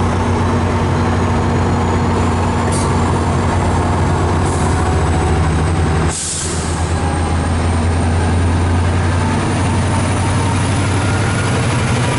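MARC diesel passenger locomotive running with a steady low engine drone. About six seconds in, a short burst of air hisses from the brake gear, with fainter puffs of air before it, and a faint high whine then rises slowly.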